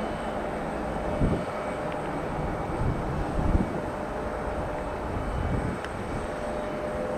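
Airbus A320neo jet engines climbing away after takeoff: a steady roar with a faint steady tone, with a few short low thumps about a second in and again about three and a half seconds in.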